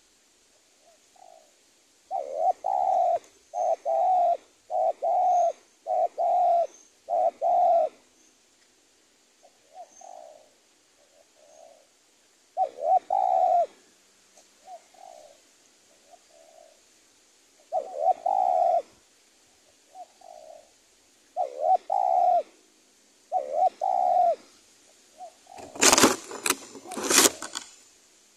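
Spotted dove cooing: a run of five loud coo phrases in quick succession, then more widely spaced loud phrases with softer coos between them. A brief clatter of loud knocks near the end.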